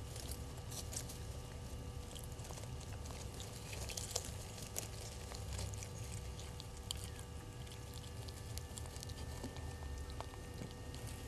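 Faint crackling and rustling of dry grass and leaves as a vervet monkey forages and feeds close by, scattered small ticks over a low steady rumble.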